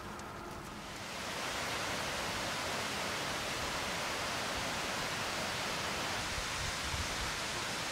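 Steady rush of a mountain stream flowing under a roadside bridge, a constant even hiss that starts about a second in.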